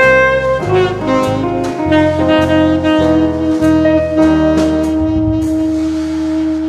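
Background jazz music with a saxophone lead over drums, settling into one long held closing note about four seconds in.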